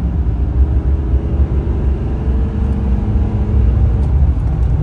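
Duramax 6.6 L V8 turbodiesel in a GMC Sierra 2500 Denali pulling strongly under acceleration, heard from inside the cab as a steady low rumble with road noise. A fainter tone in it climbs gently and fades about four seconds in.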